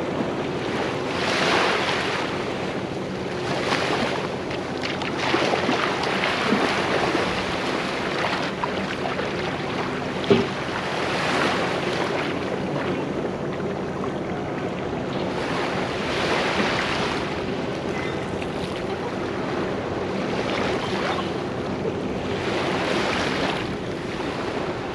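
Surf washing onto a beach, swelling every few seconds, with wind on the microphone. There is a single sharp knock about ten seconds in.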